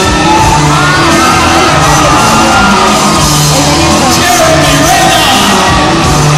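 Loud music over a PA system, with a crowd screaming and cheering over it.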